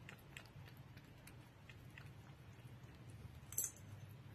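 Cat lapping kefir from a plastic bowl: faint, quick wet clicks of the tongue at an uneven pace, with one sharper, louder click about three and a half seconds in.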